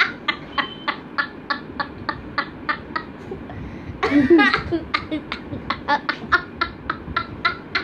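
Children laughing in short, even breathy bursts, about four a second, with a longer voiced laugh about four seconds in.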